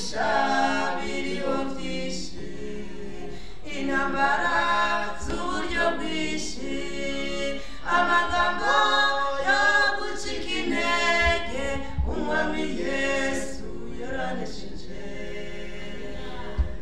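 Three voices, two men and a woman, singing a cappella into handheld microphones. They sing in phrases with long held notes and no instrumental accompaniment.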